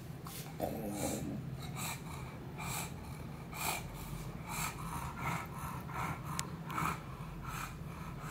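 English bulldog panting with its mouth open: a run of short, noisy breaths, roughly two a second and somewhat irregular, over a steady low hum.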